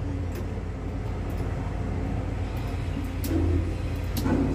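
Construction-site din: a steady low machine rumble, with a few sharp knocks scattered through it.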